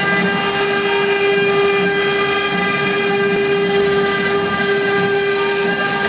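CNC router spindle whining at a steady pitch while its engraving bit mills a relief into a wooden board, with a rough, uneven cutting noise underneath.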